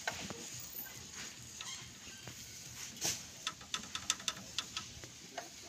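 Sharp metallic clicks and taps of a steel wrench against the valve gear of a công nông tractor engine, as the adjusting screw and locknut below the valve springs are worked. About ten quick clicks come in an irregular run from about halfway in.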